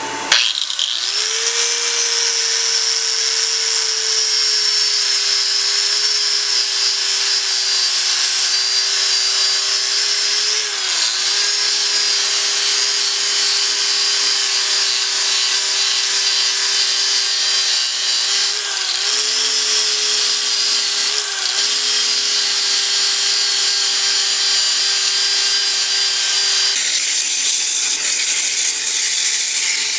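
Biscuit jointer motor converted into a disc sander starting up and running with a steady high whine and hiss, its pitch dipping briefly three times, as the disc sands a wooden wand turning on a wood lathe. Near the end the sander stops and sandpaper rubs on the spinning wood by hand.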